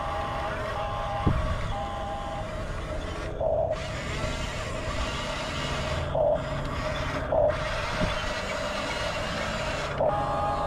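Huina 1569 RC bulldozer running with a steady whine, and a reversing beep repeating three times near the start and again near the end. There are a few brief louder surges and two sharp knocks.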